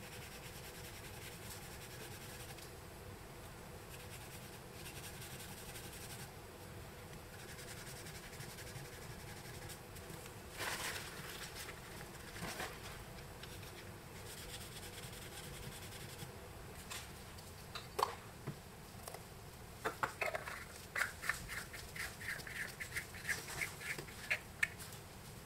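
Bakelite earpiece cap being screwed onto a telephone handset by gloved hands: faint handling noise, then a fast run of short squeaky clicks, about four or five a second, in the last several seconds.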